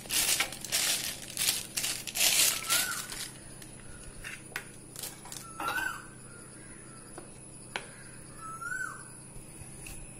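Thin plastic bag crinkling and rustling as it is opened out by hand, loudest through the first three seconds, then a few light taps and clicks as it is set down.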